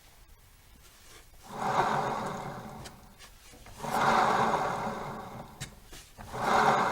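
Rear wheel of a Suzuki Address V125 scooter turned three times, each turn giving an abnormal rumbling grind from around the rear that rises quickly and fades away over about a second and a half.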